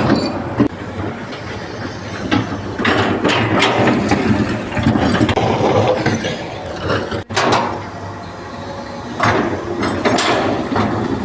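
Mechanical clatter of machinery running, with scattered knocks, cut off abruptly about seven seconds in and followed by similar machine noise.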